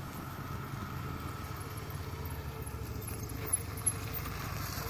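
Engine of a three-wheeled Can-Am Spyder motorcycle running steadily at low speed, a deep, even engine note.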